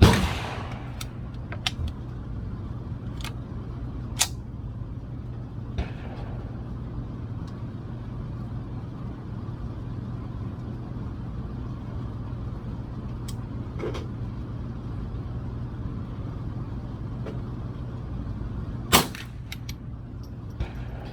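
Gunshots at a shooting range. There is a loud shot at the start, then scattered fainter shots and sharp cracks, and another loud shot near the end. A steady low hum runs underneath throughout.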